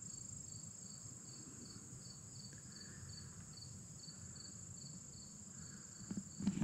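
Outdoor insect chorus of crickets or katydids: a steady high-pitched drone with a separate chirp repeating about three times a second, over a faint low rumble.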